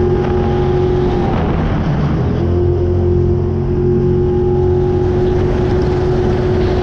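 Jetsprint boat's engine running hard at speed, a steady high engine tone over a rushing noise. The tone breaks off for about a second early on, then comes back and holds.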